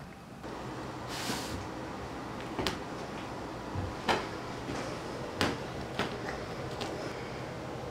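A cat playing on a rug: a short rustle about a second in, then about five sharp knocks and taps, one every second or so, as it pounces and bats at a toy. A steady low room hum runs underneath.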